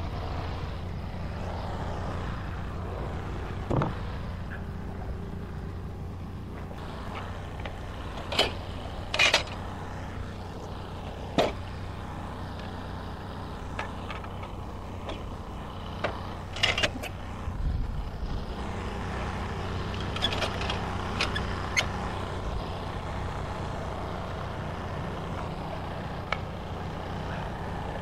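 Portable band sawmill's engine idling steadily with the blade stopped, while scattered sharp knocks and clanks come as the log is worked on the mill bed with a cant hook.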